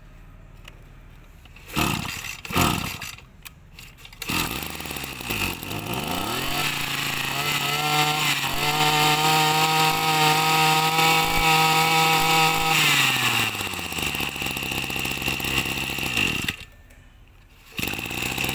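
Komatsu Zenoah 23cc two-stroke brush cutter engine being pull-started. A few short pulls come before it catches; it is revved up and held at a steady high speed for several seconds. It then drops back to idle and is switched off, stopping abruptly near the end.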